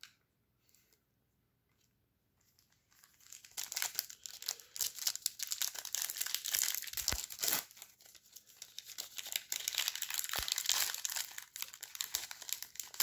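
Foil trading-card pack wrapper crinkling and tearing as it is ripped open and handled, starting about three seconds in, with a brief lull partway through.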